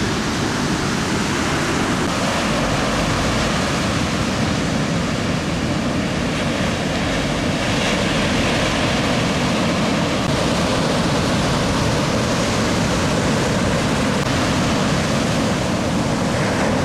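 Ocean surf breaking and washing on a beach break, a steady rush of noise without pauses that swells slightly about halfway through.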